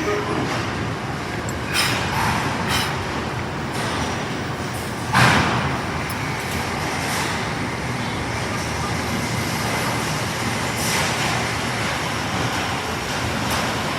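Steady engine-like rumble and noise, broken by a few short sharp knocks, the loudest about five seconds in.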